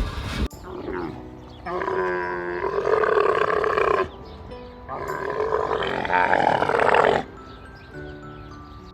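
Two long animal calls, each about two seconds, over background music with held notes.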